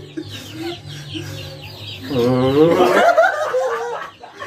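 People laughing and shrieking. A long, high vocal cry with sliding pitch starts about two seconds in and breaks into bursts of laughter.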